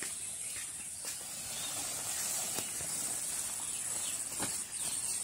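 Rustling and crinkling of woven plastic sack covers being pulled off a two-wheel power tiller, over a steady high-pitched hiss.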